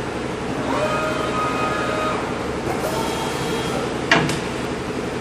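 Toshiba TUE-150 vertical boring mill's drives whining as its tool-change mechanism moves, over the machine's steady hum, then a single sharp clunk about four seconds in.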